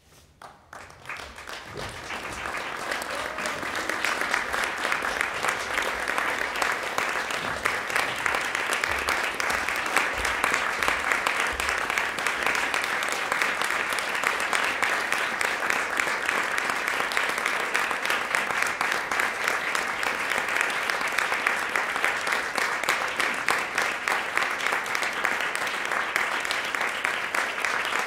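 Theatre audience applauding at a curtain call. Clapping breaks out from near silence, swells over the first few seconds, then carries on steadily.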